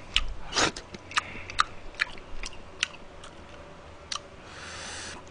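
Close-miked chewing: a man chewing a mouthful of jjamppong noodles and fried rice, with wet mouth clicks and smacks about twice a second, then a short breathy hiss near the end.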